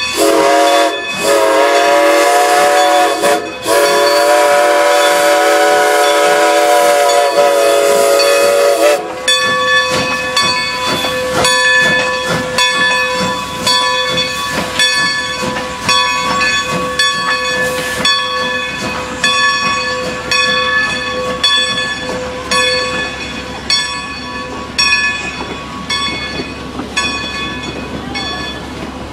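Great Western No. 90, a 2-10-0 steam locomotive, sounds its chime whistle in two long blasts lasting about nine seconds in all, with a short break between them. It then runs on past with the train, steam hissing and the wheels and coaches clattering over the rails.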